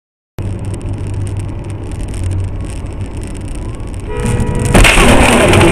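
After a brief silence, a car's engine and road rumble heard from inside the cabin. About four seconds in, a steady car horn sounds, and just before five seconds a loud, sudden burst of noise follows, typical of a collision.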